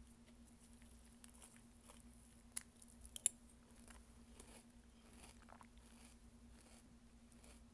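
A plastic bowl and spoon being handled: a few sharp clicks and taps about three seconds in, and fainter scattered ticks, over a faint steady hum.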